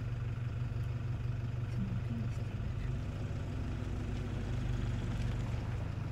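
Vehicle engine idling steadily: a low, even hum.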